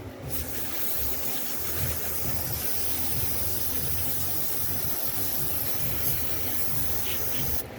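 Aerosol can of brake cleaner spraying in one long continuous blast, cutting off near the end.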